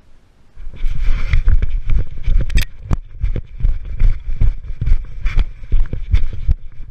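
Action camera being jostled as it is picked up and moved: heavy thumps and rubbing on its microphone start about half a second in, with knocks coming roughly twice a second.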